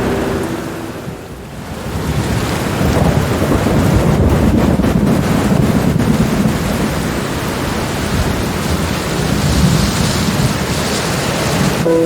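Steady rain with a long, low rolling rumble of thunder that builds about two seconds in and rolls on through the rest of the stretch.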